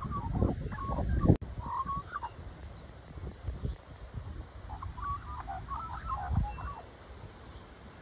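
Australian magpie warbling in short runs of notes: two brief phrases in the first couple of seconds and a longer run from about five seconds in, over a low rumble.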